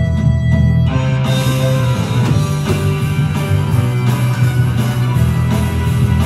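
Background music with held instrumental notes, growing fuller about a second in as more instruments join.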